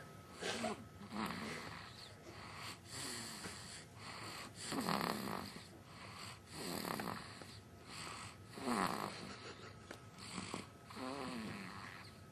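Snoring: a series of rasping snores, one every one and a half to two seconds or so, some with a wavering or falling pitch.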